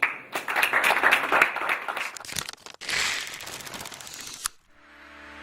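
Audience applauding, a dense clatter of claps, with a break about three seconds in as it continues more thinly. Soft music comes in near the end.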